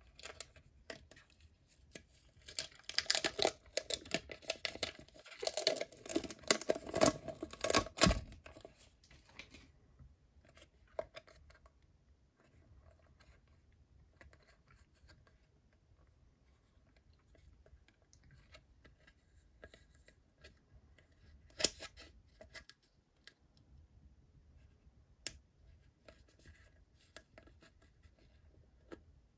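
Clear plastic film being peeled off a plastic gummy-candy tray: a dense burst of crinkling and crackling lasting several seconds, then quiet plastic handling with a couple of sharp clicks later.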